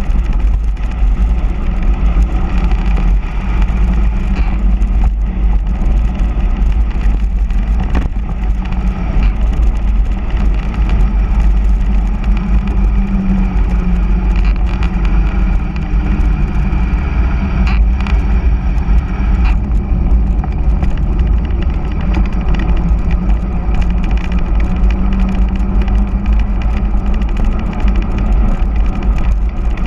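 Steady rush of wind buffeting a handlebar-mounted camera's microphone on a fast mountain-bike road descent, mixed with the hum of hard-inflated all-terrain tyres on asphalt. A couple of brief knocks come through the noise.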